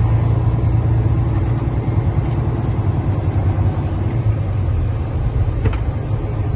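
A 2009 Peterbilt semi tractor's diesel engine running, heard inside the cab as a steady low drone.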